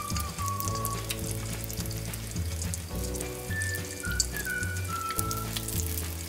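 Yeast dough for Vietnamese hollow donuts sizzling and crackling as it deep-fries in hot oil, with background music carrying a steady melody over it.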